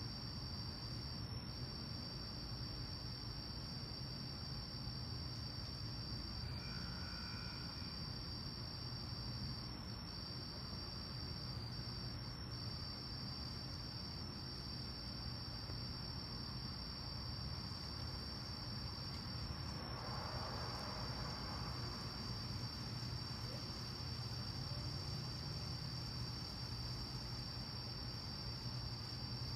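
Crickets chirping in a steady, unbroken high-pitched chorus over a low background hum. A faint swell of rushing noise rises and fades about two-thirds of the way through.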